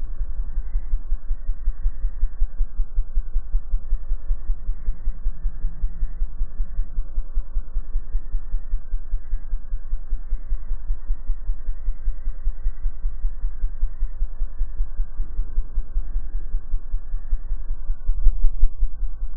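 Hummingbird's wing hum slowed to a tenth of its speed, heard as a deep throbbing of about five pulses a second. It swells louder briefly near the end.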